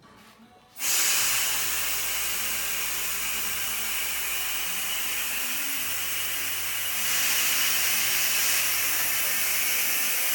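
Steady loud hiss of air that starts suddenly about a second in and steps up a little near seven seconds: the LightRay spot-repair packer running under vacuum, sucking its bladder down to shrink it for extraction from the pipe.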